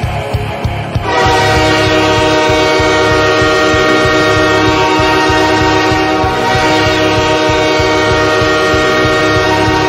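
Intro music: a loud, sustained horn-like chord of many steady tones held over a low rhythmic rumble, coming in about a second in.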